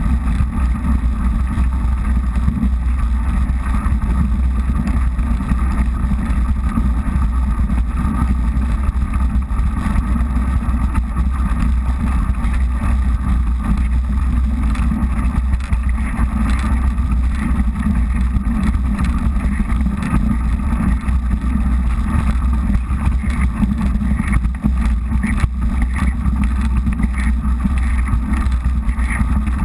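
Mountain bike tyres rolling and crunching over an icy, snow-covered dirt road, with the bike rattling and wind buffeting the GoPro's microphone. The noise is loud and steady, with a heavy low rumble.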